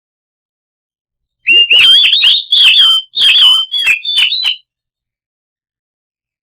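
Oriental magpie-robin (kacer) singing a loud, fast run of whistled notes lasting about three seconds, starting about a second and a half in, a song used as a trigger recording to set other kacer singing.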